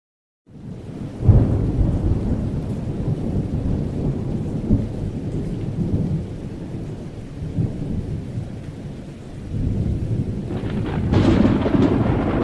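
Thunderstorm: low rolling thunder rumble over rain, starting with a loud crack about a second in and swelling again near the end.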